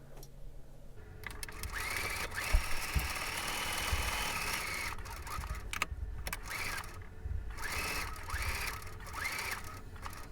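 Sewing machine stitching fabric: the motor speeds up with a rising whine, runs steadily for about three seconds and stops, then several short bursts of stitching follow.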